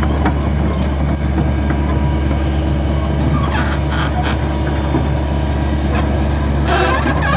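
Hydraulic excavator's diesel engine running steadily with a deep hum, with short bursts of clattering about halfway through and again near the end.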